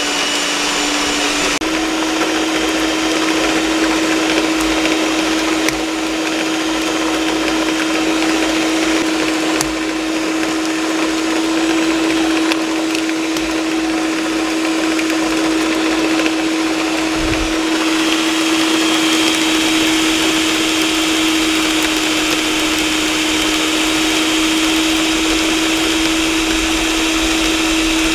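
Electric hand mixer running steadily as it beats cake batter: a constant motor whine over the whirr of the beaters, stepping slightly up in pitch about a second and a half in.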